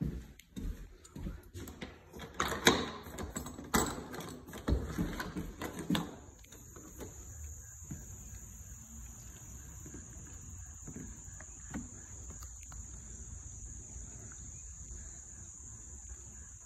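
Footsteps and the knocks and clatter of a glass back door being opened, then a steady high-pitched drone of insects that begins about six seconds in and holds.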